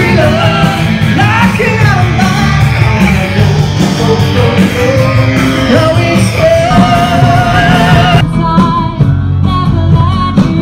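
Live rock band with a singer, amplified electric guitars and drums, heard loud from within the audience. About eight seconds in the sound changes abruptly as the high end drops away.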